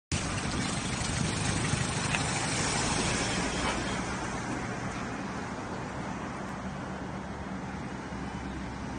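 Road traffic on a wet highway: a loud hiss of tyres on the wet surface in the first few seconds that fades away, over a steady low engine hum.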